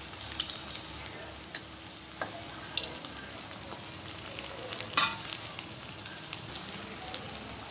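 Potato pieces deep-frying in hot oil in a steel kadai: a steady sizzle with scattered crackles and a few sharper clicks, the loudest about five seconds in. They are being fried on toward golden brown and crisp.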